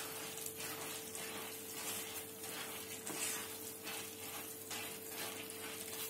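A spoon stirring fried boondi through sugar syrup in a nonstick kadhai: quiet, repeated wet scraping and rustling, about two strokes a second.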